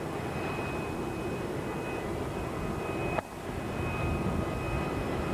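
Jet aircraft engine running steadily: a broad rumble with a thin, high, steady whine over it. The sound breaks off briefly about three seconds in, then resumes.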